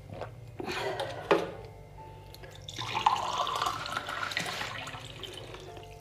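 Water poured into a drinking glass at a bathroom sink as the glass is refilled. There is a short splash with a sharp knock about a second in, then a steadier pour lasting about two seconds that tails off.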